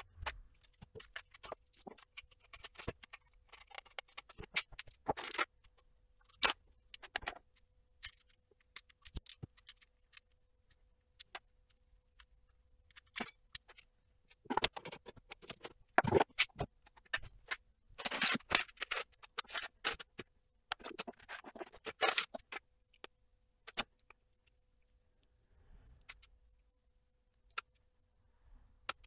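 Metal rods, screws and 3D-printed plastic parts of a 3D printer clicking and rattling as they are handled and pulled apart by hand. The clicks come irregularly in short clattering clusters, with quieter gaps.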